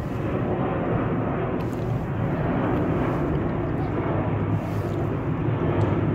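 Steady low rumbling outdoor noise with no distinct single event.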